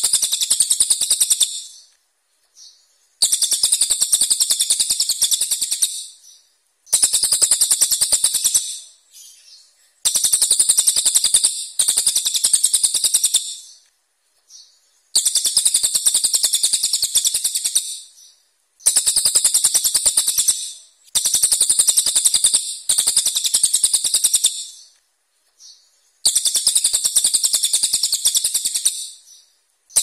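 Brown cililin singing harsh, sharp, rapid-fire phrases. Each phrase is a high, very fast run of notes lasting two to three seconds, repeated about ten times with short pauses between.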